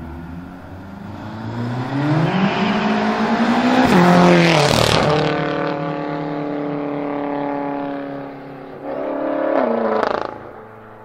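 BMW M5 F10 twin-turbo V8 accelerating hard past, its exhaust note climbing to a loud peak about four seconds in and dropping in pitch as the car goes by. It pulls away with a steady note, then gives a second rising burst of revs about nine seconds in that cuts off sharply.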